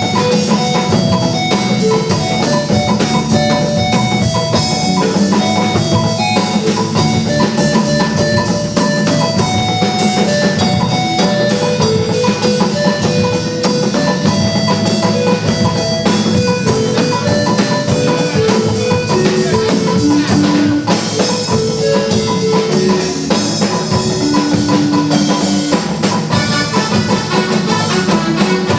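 Music with a steady drum-kit beat, guitar and melodic notes.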